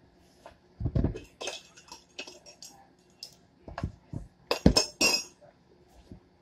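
Kitchenware clinking and knocking on the counter as pie crust dough is mixed by hand in a bowl: a dull thump about a second in, scattered clinks, then a cluster of sharp knocks near the end.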